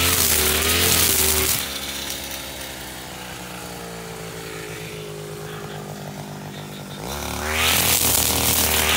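Husqvarna 542RBS backpack brush cutter's two-stroke engine running at full throttle while cutting thick grass. About a second and a half in, the throttle is let off and the engine runs slower and quieter, its pitch slowly falling. About seven seconds in it is revved sharply back up to full speed.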